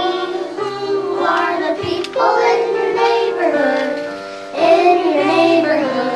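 Children singing a song over backing music.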